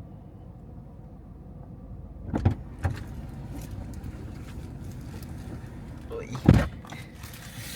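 Low, steady hum inside a car cabin, with two sharp knocks about two and a half seconds in and a louder thump near the end.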